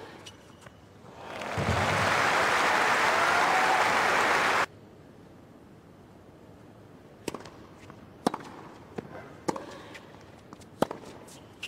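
Crowd applauding for about three seconds, then cut off abruptly. After a short lull comes a tennis rally: tennis balls struck by rackets, a sharp crack about once a second.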